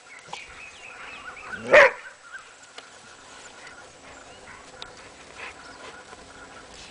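A dog gives one short, loud bark about two seconds in, barking at a cobra it is attacking; otherwise only faint background sound.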